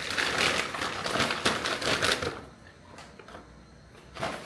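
Shopping bag rustling and crinkling as groceries are handled and taken out of it, busy for about two seconds, then quieter.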